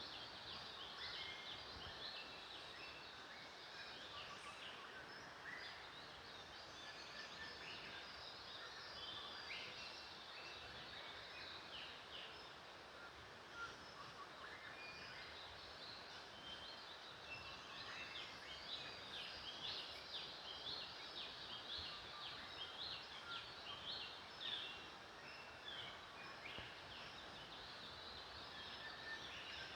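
Faint chorus of many small birds chirping and calling over each other above a steady background hiss, growing busier about halfway through.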